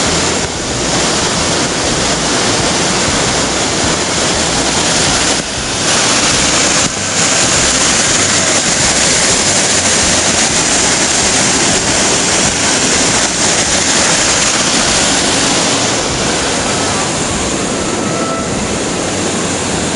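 Waterfall and creek whitewater rushing: a loud, steady wash of falling water, briefly dipping twice about five and seven seconds in.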